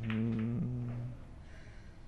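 A man's drawn-out, wordless hum or held 'mmm', about a second long, fading into faint room noise.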